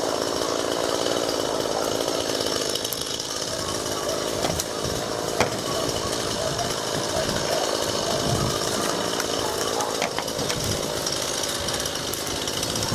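Chainsaw running steadily, cutting up a fallen ash limb.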